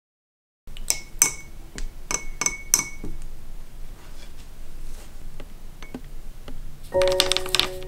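A paintbrush rinsed in a glass water jar, its ferrule clinking against the glass several times with a short high ring, followed by quieter blotting sounds on a paper towel. Background music starts near the end.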